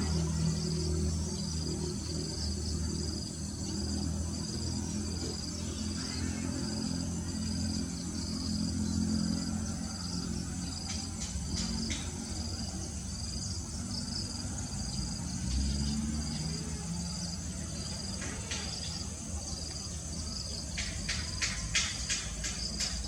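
An insect, cricket-like, chirping in a steady rhythm of short high chirps, somewhat more than one a second, over a low steady rumble. A few quick bursts of sharp chirps come near the end.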